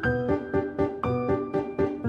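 Bouncy music made of short, evenly spaced pitched notes, about four a second on a steady beat.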